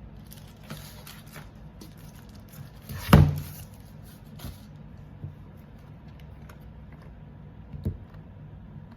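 Handling sounds from a keyboard and its keycaps: scattered light clicks, one loud knock about three seconds in and a smaller knock near the end, over a low steady hum.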